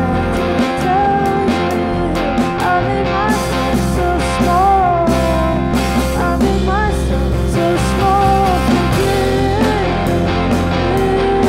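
Indie rock band playing live: electric guitar, bass guitar and drum kit, with a woman singing a melody over them.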